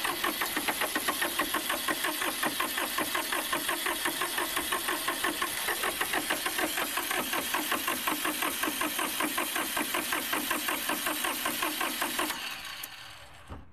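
Massey Ferguson 1010's diesel engine being turned over by its starter motor, with an even beat of about five compression pulses a second that never speeds up. It cranks without catching, even on starting fluid, and the cranking stops about twelve seconds in.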